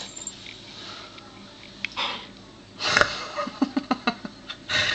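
Siberian husky breathing noisily and huffing through its nose: a few breathy bursts, the loudest about three seconds in, then a quick run of short low huffs.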